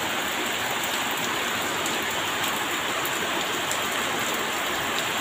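Heavy rain falling steadily on the street and roofs, an even, unbroken hiss.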